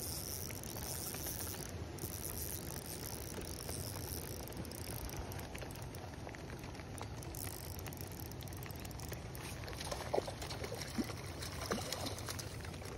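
Steady rain pattering on a pond surface, with a hooked trout splashing and thrashing in the water in a few sharp bursts near the end as it is netted.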